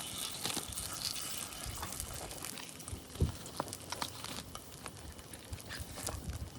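Batter sizzling and crackling in an oil-soaked bungeoppang (fish-shaped pastry) mould, with a single knock about three seconds in.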